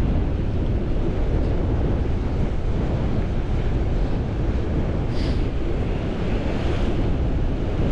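Strong sea wind buffeting the microphone, with surf washing against the rocks; a brief hiss about five seconds in.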